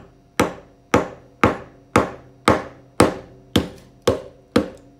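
Ball peen hammer tapping a whole geode held on a wooden workbench: about nine light, evenly spaced strikes, roughly two a second, each with a short ring. This is the steady light hammering at a weak spot in the rock that works toward splitting the geode into two halves.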